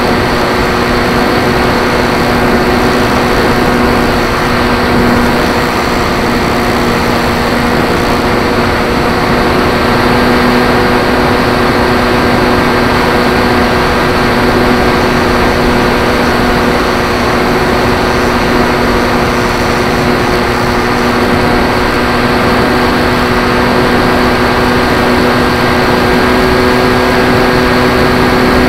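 Brushless 3542 electric motor and pusher propeller of a Zeta Phantom FX-61 flying wing running steadily at partial throttle (under 40%), picked up by a camera mounted on the airframe without a damper. The whine holds a constant pitch over a steady hiss of air and propeller noise.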